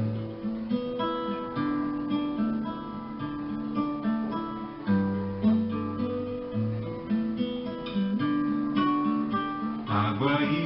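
Acoustic guitar playing the introduction of a children's song, plucked and strummed chords over a repeating bass line. A voice starts singing near the end.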